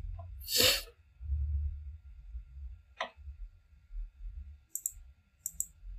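Computer mouse clicking: a single sharp click about three seconds in, then two quick double-clicks near the end. A brief soft rush of noise comes just under a second in, and a faint low rumble runs underneath.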